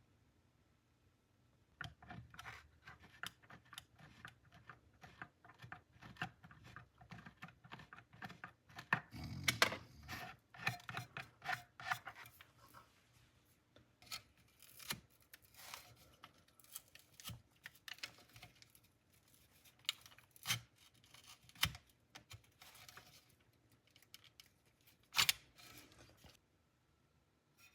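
A hand tool scraping and scratching disintegrated foam and old glue off the rim of a subwoofer's bass driver, in many short, uneven strokes. The scraping starts about two seconds in and stops shortly before the end.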